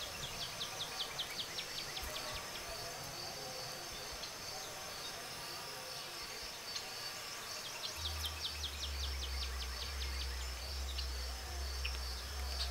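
Insects buzzing steadily in a high, pulsing chorus, with twice a rapid run of short sharp chirps, about five a second. A low rumble joins about eight seconds in.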